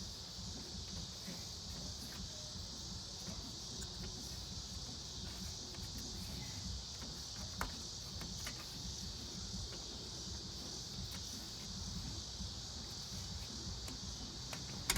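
Steady high-pitched chorus of insects such as crickets, over a low rumble, with a light click about halfway through.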